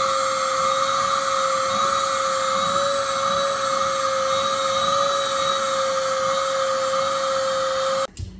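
Vacuum cleaner running with a steady high whine while its hose nozzle is drawn over a long-haired cat's fur. It cuts off abruptly near the end.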